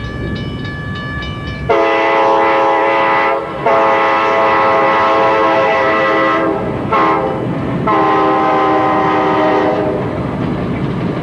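Diesel locomotive's multi-chime air horn sounding the grade-crossing signal: two long blasts, a short one and a final long one, over the running noise of the passing train. A brief pulsing tone comes before the first blast.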